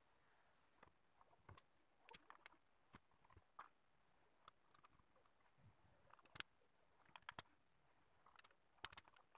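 Near silence broken by faint, irregular small clicks and ticks of resistor leads being handled, bent and pushed through the holes of a bare circuit board.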